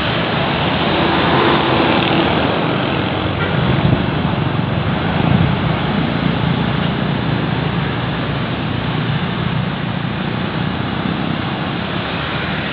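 Steady road-traffic noise: a bus and other vehicles passing, engines and tyres.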